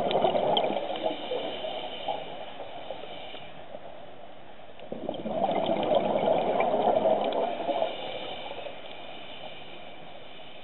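Scuba diver's exhaled bubbles burbling from the regulator twice, about five seconds apart, picked up underwater. A faint high whistle follows each burst, with a quieter steady underwater hiss between them.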